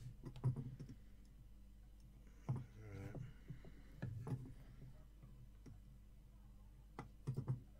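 A few faint clicks and taps as a circuit board and a soldering iron are handled on a workbench, with a small cluster of them near the end.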